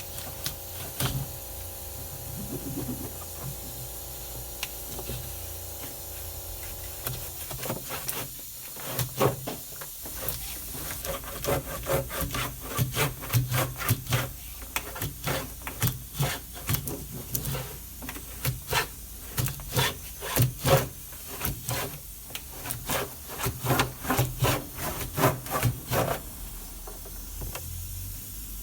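Hand scrubbing and scraping on a washing machine's parts as it is cleaned: a run of short, irregular rubbing strokes, roughly two a second, starting about eight seconds in. Before that there is a steady low hum.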